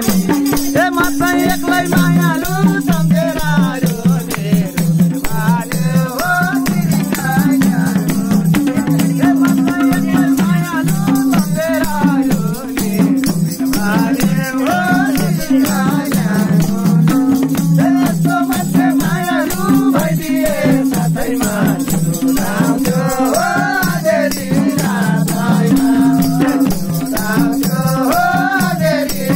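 Nepali dohori folk song performed live: a voice singing a wavering melody over madal drumming and a steady rattling percussion beat.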